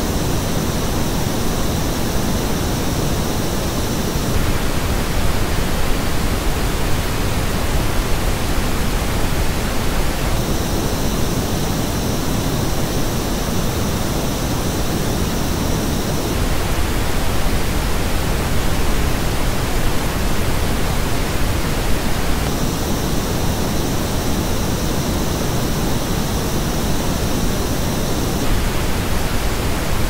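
Steady pink noise test signal. It switches about every six seconds between the flat original reference and the same noise as reproduced by AKG K812 open-back headphones. The headphone version has a dip in the upper midrange and two narrow peaks in the treble, which show how the K812's frequency response departs from flat.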